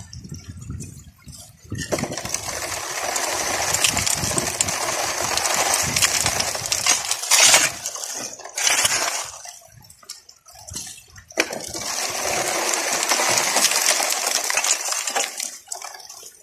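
Shovel scraping into wet river gravel, with pebbles clinking and clattering, in three long stretches of several seconds with short pauses between, as gravel is worked for a highbanker gold sluice.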